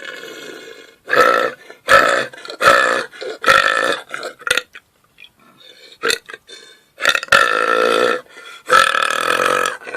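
A man burping on command: a string of loud, drawn-out, pitched belches, four in quick succession, a few smaller ones, then two longer ones near the end.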